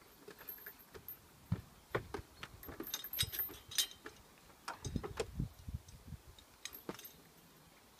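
Scattered knocks and metallic clinks from a wooden climbing frame as a child swings hand over hand along its monkey bars, with the swings' metal hooks and chains jangling as she brushes past them. The clinking is busiest about three to four seconds in.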